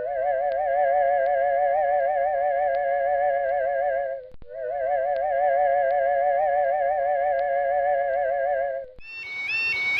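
Warbling, theremin-like flying-saucer sound effect: two wavering tones with a fast, even wobble, sounded twice for about four seconds each with a short break between. About nine seconds in it gives way to a higher, rapidly repeating electronic tone pattern.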